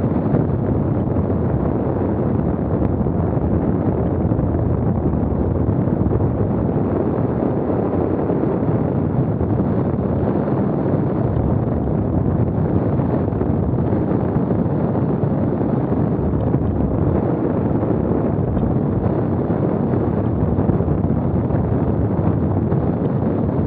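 Steady, loud wind noise buffeting the microphone, a low rumbling rush with no breaks.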